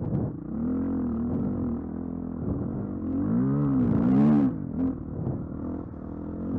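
Dirt bike engine running under way, its pitch rising and falling as the throttle is worked, loudest in a rev about four seconds in.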